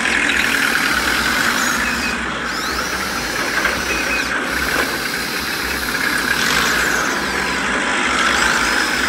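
Small electric motor and gears of a homemade toy tractor whirring steadily with a faint whine, straining under load as it drags a brick-laden trailer through wet mud.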